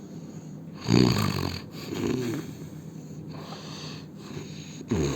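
A man snoring in his sleep: a loud snore about a second in, a softer one just after, and another loud snore starting near the end.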